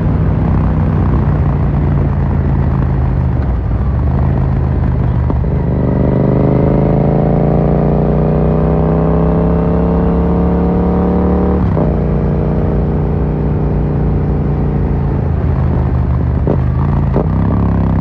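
Yamaha MT-07's parallel-twin engine through an Akrapovic carbon full exhaust while riding. The engine note climbs steadily under acceleration for about six seconds, then falls abruptly. A couple of sharp exhaust pops come near the end.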